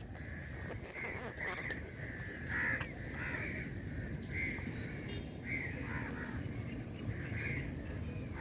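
Crows cawing repeatedly, about eight short harsh caws roughly a second apart, over a steady low rumble.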